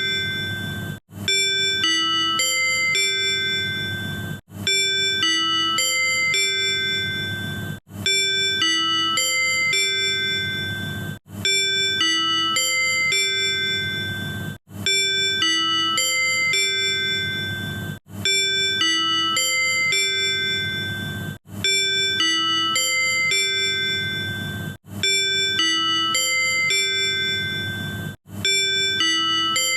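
Tobu 100 series Spacia's manual on-board announcement chime, a short run of ringing chime notes. It is the chime that introduces the conductor's announcements and the on-board sales announcements. It repeats about every three and a half seconds with a brief break between repeats, over a low hum.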